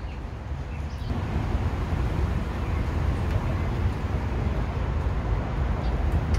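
Steady street traffic noise, a low rumble and hiss without distinct events, getting louder about a second in.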